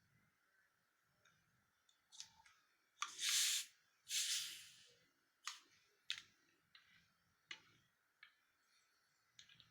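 A person's mouth and breath noises: two short breathy rushes of air, then a string of sharp small clicks at uneven intervals, about one every half second to second.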